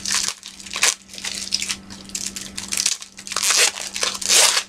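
Plastic packaging crinkling and rustling as it is handled, in a string of uneven bursts, the loudest near the end.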